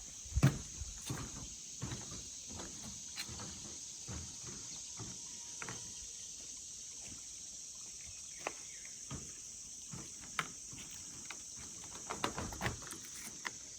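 Steady high-pitched insect chorus, crickets or similar, over irregular footsteps on a woodland trail; the loudest step comes about half a second in.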